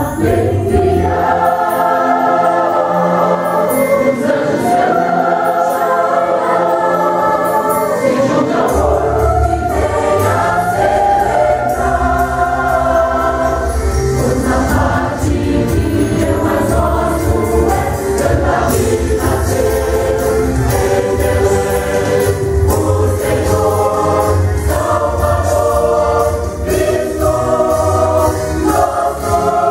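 Mixed church choir singing a Portuguese Christmas song in harmony over a musical accompaniment, with a bass line coming in about nine seconds in.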